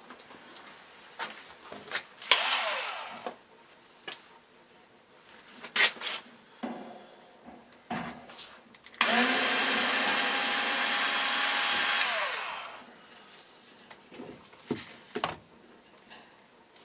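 Handheld power driver motor whirring as it backs out the screw at the bottom of the fan's grille: a short spin about two seconds in, then a longer steady run in the middle that winds down as it stops. Scattered clicks and knocks of the fan parts being handled come in between.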